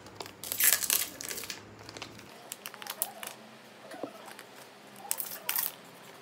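Plastic film wrapper of a string cheese pack being torn open and crinkled by hand: a loud tearing rustle about half a second in, small crackles as the cheese sticks are handled, and another rustle about five seconds in as a second stick is pulled from its wrapper.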